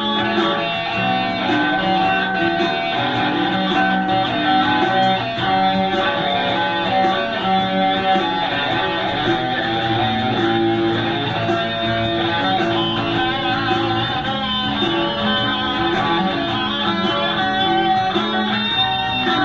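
Guitar music playing throughout.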